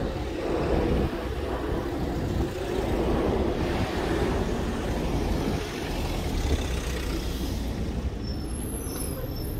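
Street traffic: cars running and passing close by on the road, a steady rumble. Near the end a thin high squeal starts as a red bus brakes in towards the stop.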